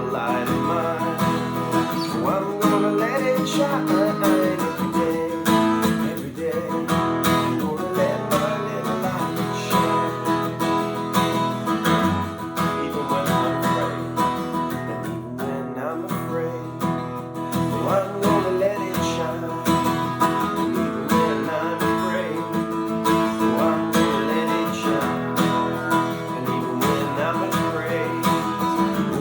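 Worship music played on a strummed acoustic guitar, steady throughout.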